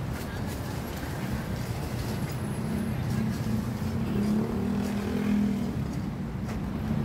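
Road traffic with a motor vehicle engine running close by, a low steady hum that swells about four to six seconds in.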